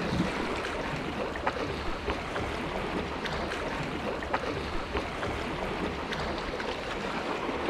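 Sea water washing and lapping against the rocks and concrete tetrapods at the water's edge: a steady wash with small splashes now and then.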